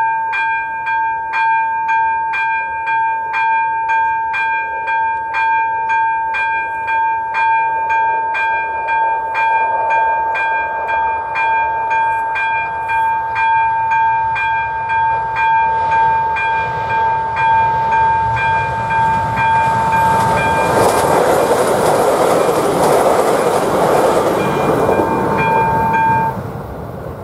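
Level-crossing warning bell (electronic bell ZV-02 on AŽD 71 warning lights) ringing steadily, about three strikes every two seconds, then stopping about a second before the end. Under it, the rumble of a passing train builds from about a third of the way in and is loudest near the end.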